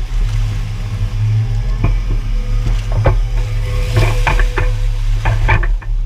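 Wet pond mud sloshing and splatting as a John Deere 200 excavator bucket scoops through it, with irregular wet splats. The excavator's engine runs steadily underneath.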